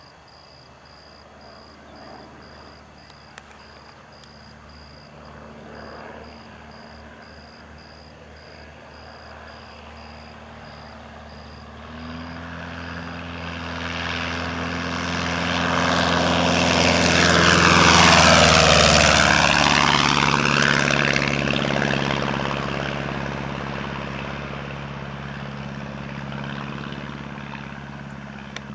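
Light airplane with a Continental A-65 air-cooled flat-four engine turning a propeller, making a low fly-by. The engine drone grows louder, peaks about two-thirds of the way through with a sweeping, phasing whoosh as the plane passes closest, then fades as it flies away.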